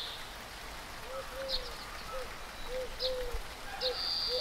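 Birds calling in the open: a short, low, arching note repeated irregularly, about twice a second, with a few higher thin chirps and one longer high whistle near the end.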